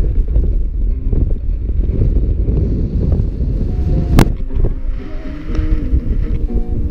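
Wind buffeting an action camera's microphone on a paraglider in flight, a loud steady rumble. A single sharp click about four seconds in, and faint music from a small speaker carried by the pilot in the second half.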